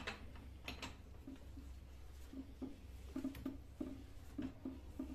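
Ratchet wrench tightening the top nut of a Renault Logan front shock absorber down onto its strut mount, clicking in quick repeated strokes, two or three a second. A few sharper knocks of metal on metal come in the first second.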